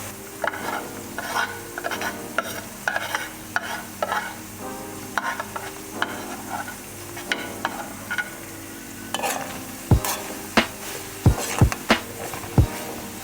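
Food sizzling in a frying pan while a utensil stirs and scrapes it, with sharp taps against the pan in the last few seconds.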